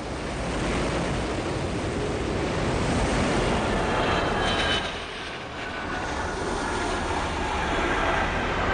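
Twin jet engines of an F-22 Raptor fighter at high power during takeoff and flight: a steady loud rush with a faint high whine, easing off briefly about five seconds in.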